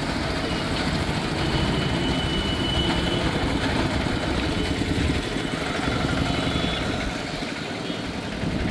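An engine running steadily with a low, even rumble, easing off a little near the end.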